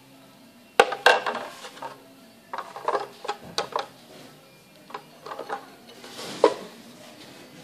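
Clear plastic 12-well multielectrode plate knocking and clicking against the plastic plate holder of an Axion MAESTRO recording system as it is seated, then the system's sliding cover pushed shut. The sound is a series of sharp plastic clicks and knocks in short clusters, the sharpest a single knock about six and a half seconds in.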